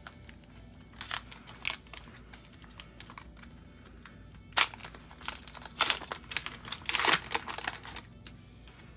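Foil Pokémon trading-card booster pack wrapper being crinkled and torn open: a run of separate sharp crackles, thickest in the second half.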